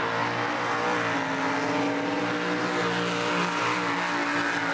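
Racing swamp buggy engines running hard as the buggies drive through the water; a steady engine note that shifts slightly in pitch.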